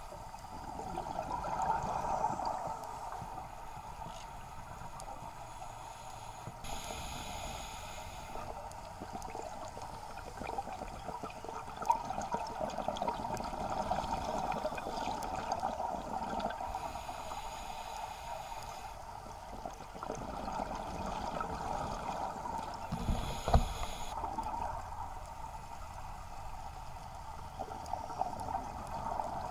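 Underwater ambience picked up through an action camera's waterproof housing: a continuous crackling, gurgling hiss of water and bubbles that swells and fades, with a dull thump near the end.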